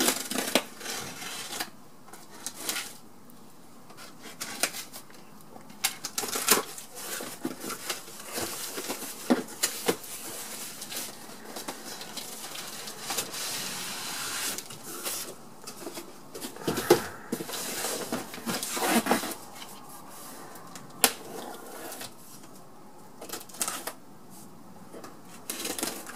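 Cardboard boxes being unpacked by hand: flaps pulled open and cardboard rustling and scraping, with irregular sharp knocks as an inner box is lifted out and set down.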